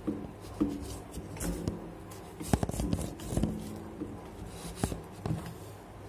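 Scattered clicks, taps and scrapes as hands handle a table fan's hub and its cardboard blades, over a faint steady low hum.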